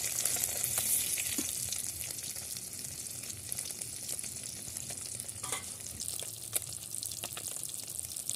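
Food frying in hot oil in a pan, a steady sizzle, with occasional light clicks as it is stirred.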